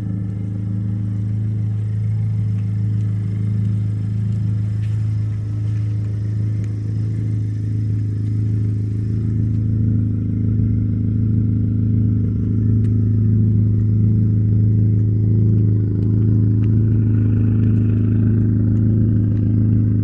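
Honda Civic's engine idling steadily, a loud, even low hum from the exhaust.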